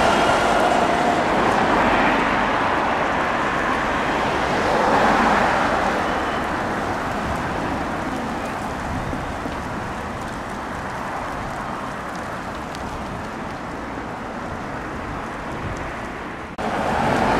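Street traffic as a red double-decker bus passes close by, loudest at first and again briefly a few seconds in, then easing into a steady wash of engines and tyres. About a second before the end the sound breaks off abruptly and louder traffic starts.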